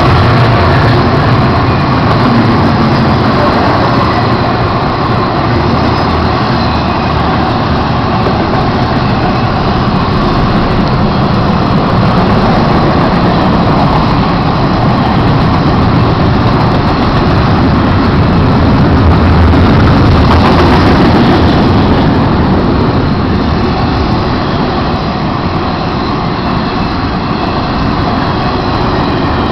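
Florida East Coast freight train passing close by, its intermodal cars rolling past on the rails with a loud, steady noise.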